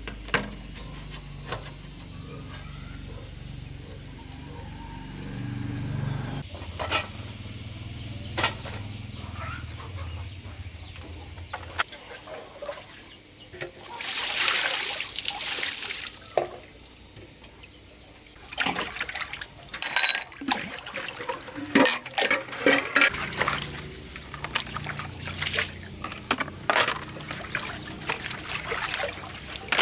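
Cooking and washing-up sounds: a brief rush of water being poured or splashed about halfway through, then a run of clinks and knocks of pots and utensils.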